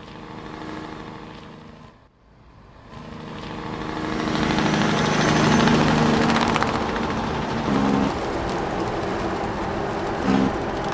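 Diesel semi truck engine running and building up to a steady loud drone, with a fast, even rattling pulse starting near the end.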